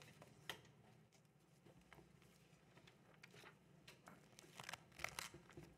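Near silence: quiet room tone with a few faint rustles and small clicks, a short cluster of them near the end.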